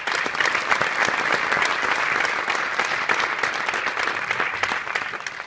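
Audience applauding, many hands clapping together, tapering off near the end.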